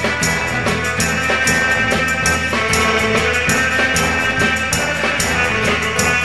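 Rock music with drum kit and guitar, playing a steady beat.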